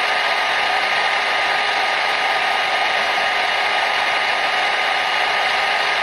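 Electric hair dryer running steadily: an even rushing of blown air with a faint motor whine, played continuously as white noise to soothe a baby to sleep.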